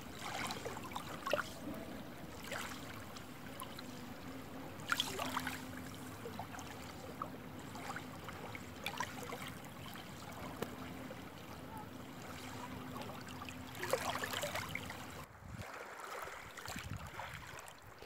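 Faint ambience of slow river water, with soft rippling and a steady low hum underneath. There are a few brief faint noises, and the sound drops away about fifteen seconds in.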